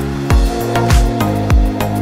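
Background electronic music with a steady, deep kick-drum beat about every 0.6 seconds over a bass line.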